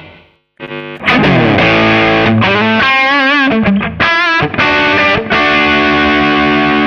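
Electric guitar played through a Line 6 POD Pro's stock amp sound. Near the start the sound cuts to silence briefly, as the noise gate closes, then a lead phrase with wavering vibrato notes ends on a long held note.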